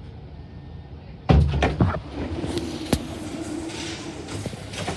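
CAF Urbos 3 light rail vehicle's passenger door opening at the push of its open button: a heavy thud about a second in, a few knocks, then a steady hum from the door mechanism with a sharp click partway through.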